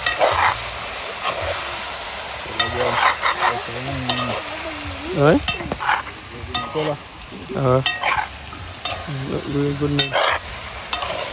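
A pot of crayfish curry in coconut milk sizzling as it cooks down, stirred with a spoon that clicks and scrapes against the pot several times. Some brief wavering pitched sounds come in between the strokes.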